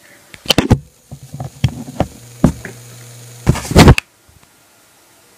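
Handling noise as a smartphone is held by its buttons and a USB cable plugged in: several sharp clicks and knocks, a faint low hum for about a second, then a loud rubbing scrape near four seconds in that cuts off suddenly.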